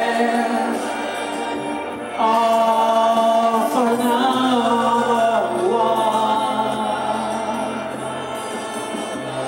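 A woman's voice singing long held, wordless notes through a handheld microphone over a backing track, gliding from one pitch to the next between notes.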